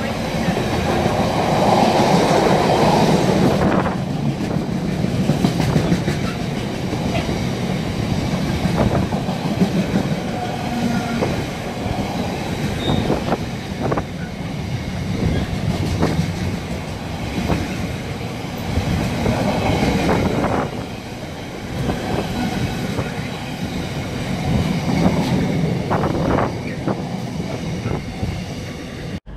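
Container freight train's loaded flat wagons rolling steadily past, with a continuous rumble of wheels on rails and irregular clicks and clacks as the wheels run over rail joints.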